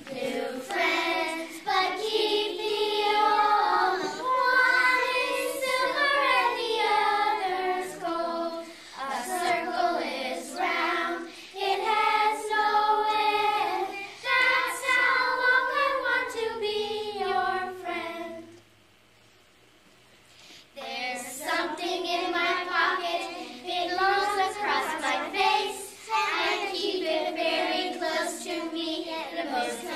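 A group of young girls singing a song together without instruments, breaking off for about two seconds a little past halfway before going on.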